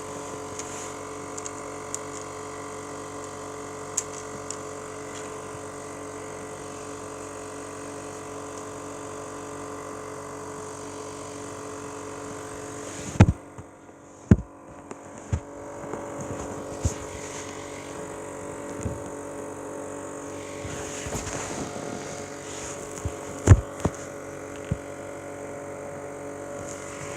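Homemade 12-volt box fan running steadily, its motor humming under the whir of the three blades, its bearing freshly oiled. A few sharp knocks sound about halfway through and again near the end.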